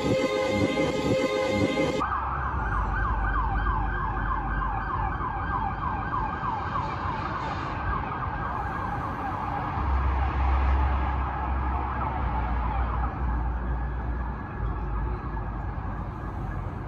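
Emergency vehicle siren wailing in quick, repeating rises and falls, fading away over about ten seconds, over a low steady rumble. Before it, music plays for the first two seconds and cuts off abruptly.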